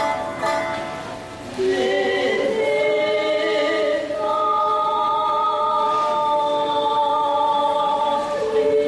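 Yamato-gaku song with voices singing long, steady held notes over the accompaniment, the melody stepping to a new pitch near the end.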